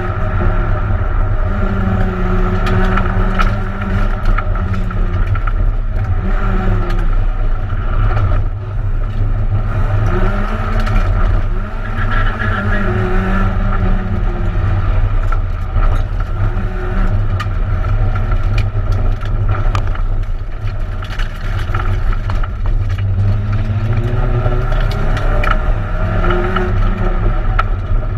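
Peugeot 106 1600 rally car's four-cylinder engine, heard from inside the cabin, driven hard on a tarmac stage: the engine pitch climbs and drops again and again through gear changes, over constant road and tyre noise with scattered clicks and knocks.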